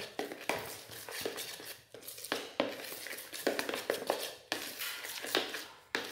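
A metal spoon stirring and folding egg yolk mixture into beaten egg whites in a bowl: uneven scrapes and light clicks of the spoon against the bowl, a few strokes a second.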